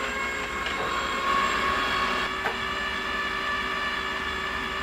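TP-Link Tapo RV30 Plus robot vacuum running as it drives itself back to its charging dock: a steady multi-tone motor whine over a low hum.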